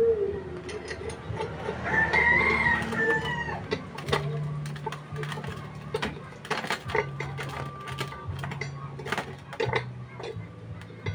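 Galvanized steel pipes and a steel plate clinking and knocking as they are handled and fitted together, with a bird's long call in the background about two seconds in.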